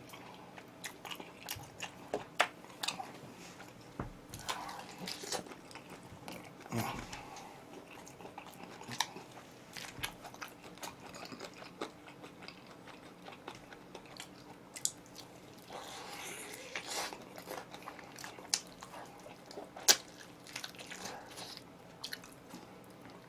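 A person chewing and biting crisp-skinned oven-roasted chicken close to the microphone: scattered crunches and wet chewing sounds with short pauses.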